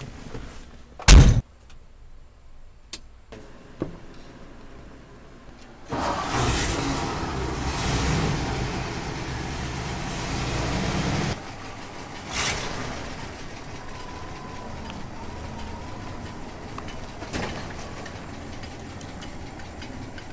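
A 1954 Ford fire truck's cab door slams shut about a second in. About six seconds in the engine starts up and runs loud for about five seconds, then settles into a steadier, quieter running with a sharp knock shortly after.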